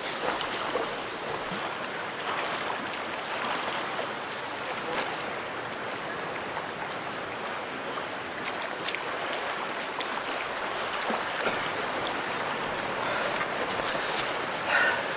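Steady rush of running water, with a few faint clicks near the end.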